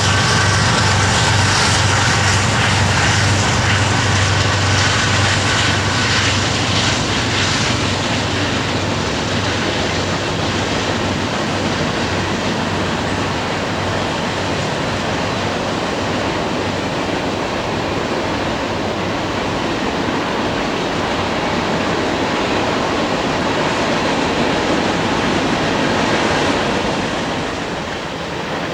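Freight train passing: diesel locomotive engines running for the first several seconds, with some higher held tones, then the steady noise of freight cars rolling along the rails, easing a little near the end.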